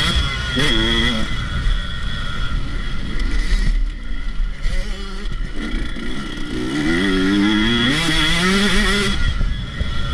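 Dirt bike engine revving hard as it is ridden around a motocross track, heard from on board. The pitch drops sharply just after the start, then climbs in rising sweeps from about seven to nine seconds in as the bike accelerates.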